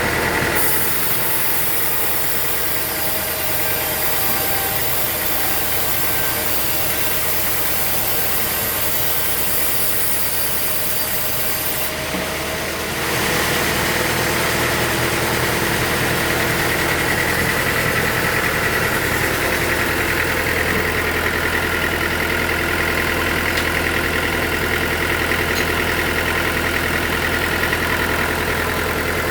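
Sawmill machinery running steadily with a constant motor drone. The tone shifts and grows slightly louder about 13 seconds in.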